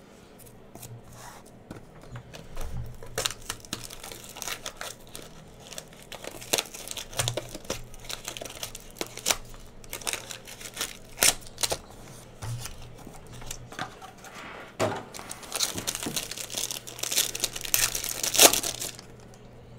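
Shiny plastic trading-card pack wrapper crinkling and tearing as it is opened by hand: a long run of sharp crackles that grows thickest in the last few seconds, then stops suddenly.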